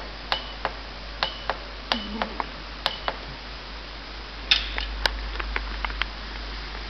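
Keys on an inkjet coding printer's membrane keypad being pressed: about a dozen sharp clicks at an uneven pace, several with a brief high beep. A louder clatter of clicks comes about four and a half seconds in.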